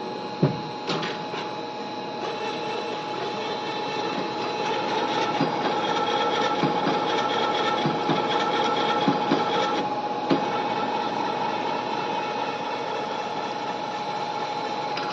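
CNC servo tapping machine running, a steady mechanical whine and hum with a few sharp knocks. A higher tone in the running sound stops about ten seconds in.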